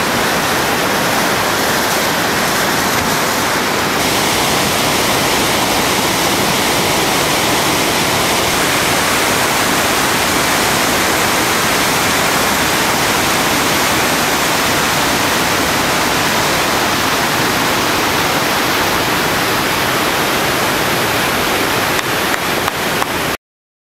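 Whitewater rapids rushing in a steady, loud roar of water, which cuts off suddenly near the end.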